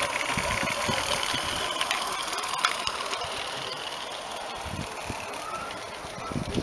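Small live-steam model tram with a double-acting engine running along garden railway track. It gives a steady hiss with quick faint ticking, and there are scattered low thumps.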